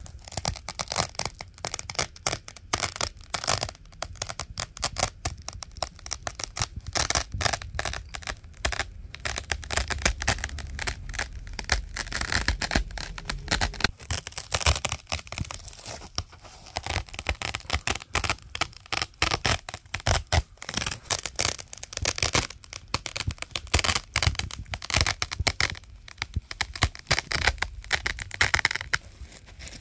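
Velcro hook-and-loop fastener being ripped apart over and over: a near-continuous run of crackling tears with only brief pauses.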